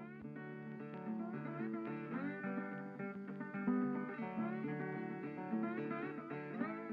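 Background music: acoustic guitar playing a picked and strummed melody, with notes sliding now and then.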